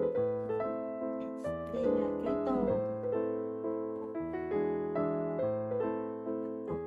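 Background piano music: a gentle melody of held notes, each fading after it is struck, over a low bass line.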